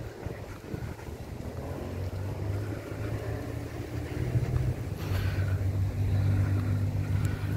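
A motor vehicle's engine running, a steady low hum with a few overtones that grows louder over the last few seconds as it comes closer.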